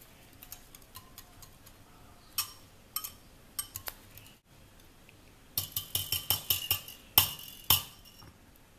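Wire balloon whisk beating an egg mixture in a bowl, its wires clinking against the bowl's sides. A few scattered taps come first, then a quick run of clinks at about six a second past the halfway mark.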